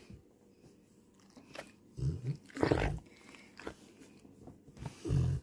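A Rottweiler lying down makes a few short, low breathing noises. One comes about two seconds in, a louder one follows just after, and another comes near the end.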